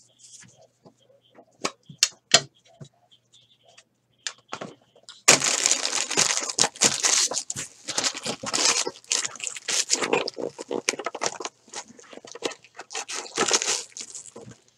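A few light taps and clicks, then about five seconds in a long stretch of crinkling and tearing of card-pack wrappers and packaging, by hand.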